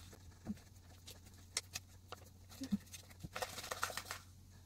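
Faint clicks and taps of a small plastic dropper bottle and its packaging being handled, with a short cluster of clicks a little past three seconds in.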